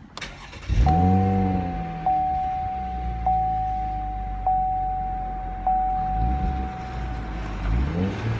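2019 Chevrolet Camaro's 3.6-litre V6, running through a newly fitted Airaid cold-air intake, cranks and catches about a second in, then settles to a steady idle. A single-tone warning chime repeats five times over it, about once a second. The engine speed rises briefly twice near the end.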